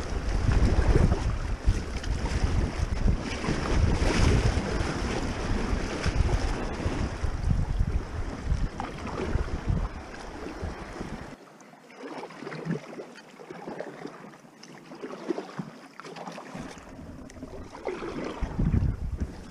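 Creek water rushing around a packraft through a shallow riffle, with wind buffeting the action camera's microphone. About eleven seconds in, the low rumble cuts out, leaving quieter flowing water with a few paddle splashes.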